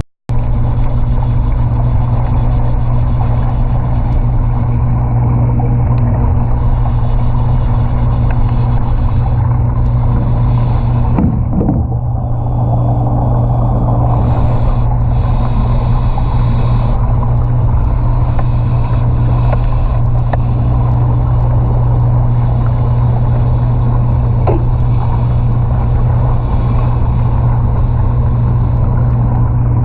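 A loud, steady low mechanical drone, like a motor running continuously, with a faint scrape or shift in the noise about twelve seconds in.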